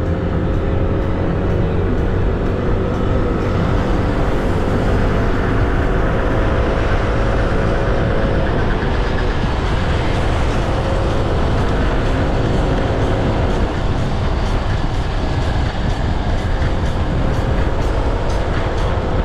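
Yamaha NMAX 155 scooter's single-cylinder engine running under way, its pitch rising and falling several times with the throttle, over a steady rush of wind and road noise.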